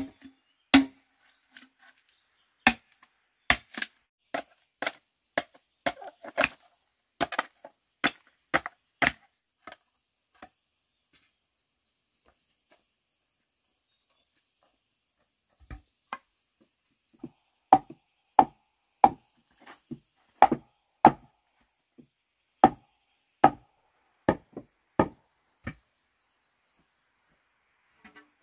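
A machete chopping into a length of green bamboo: sharp woody strikes, about two a second for roughly nine seconds. After a pause of several seconds, a second run of similar hard knocks follows, a little slower.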